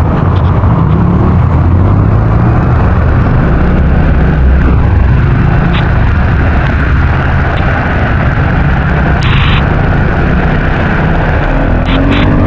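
Wind and heavy rain buffeting the bare built-in microphone of an uncased DJI Action 4 camera on a moving vehicle: a loud, steady low rumble with a hiss above it and a few short clicks.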